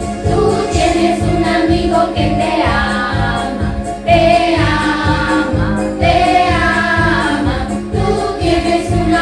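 A Christian song: several voices singing over a musical accompaniment with a steady beat.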